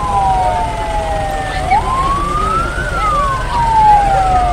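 Fire truck sirens wailing: two sirens slightly out of step, each rising over about a second and falling slowly over the next two to three, over a low rumble.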